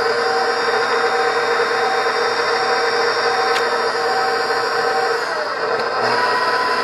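KitchenAid stand mixer's electric motor running steadily with a whine, its repaired speed-control switch now turning it on. The motor's note changes slightly after about five seconds.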